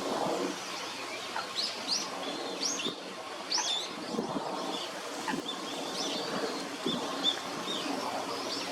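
A mixed group of Eurasian coots and Eurasian wigeon calling: many short, high calls overlapping one another, with a few brief low knocks.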